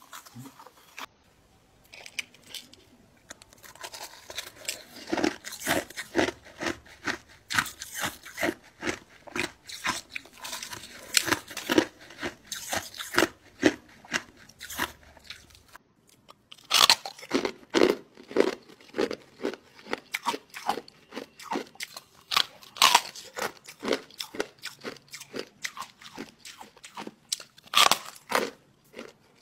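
Ice being bitten and chewed: fast, sharp crunches a few times a second, with short lulls near the start and about halfway through.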